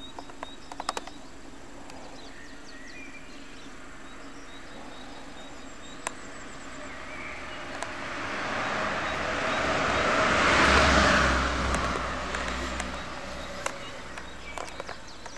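A car passes on a nearby road: tyre and engine noise swells over a few seconds, peaks, then fades away. A few faint bird chirps and small handling clicks sit under it.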